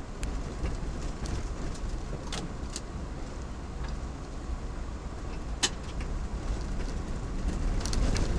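4x4 driving along a rough dirt forest track, heard from inside the cab: a steady low rumble of engine and tyres, with scattered sharp clicks and knocks, the loudest about two-thirds through.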